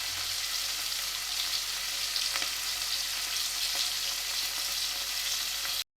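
Sliced onions frying in hot oil and ghee in a pressure cooker, a steady sizzling hiss as they are sautéed towards golden brown. The sizzle cuts off suddenly just before the end.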